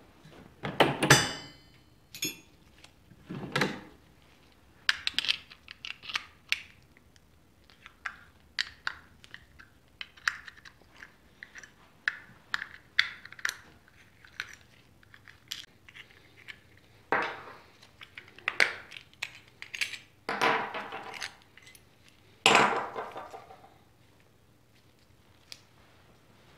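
Metal clinks, taps and scrapes as a spanner and gloved hands work on a chrome motorcycle fuel cap, undoing the nut on its inner plate and lifting the plate off. A few louder clatters with a short ring, about a second in and again in the last third.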